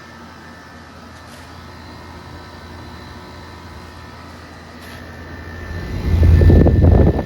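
2004 Daewoo DWC-054R window air conditioner running with a steady hum. About five seconds in, a loud low rumble builds and holds to the end.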